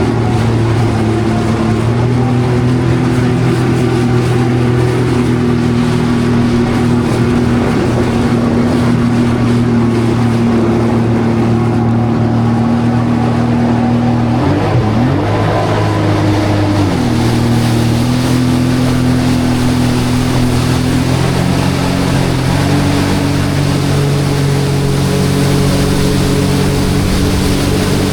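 Jet ski engine running at speed, with water and wind rushing past. About halfway through the engine note drops briefly and climbs back up as the throttle eases and opens again, then rises a step higher later on.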